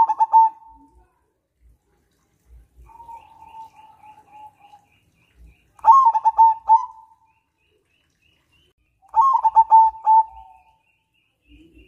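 Zebra dove (perkutut) singing: four cooing phrases of rapid staccato notes, about three seconds apart, the second one softer. A faint series of high chirps runs behind them.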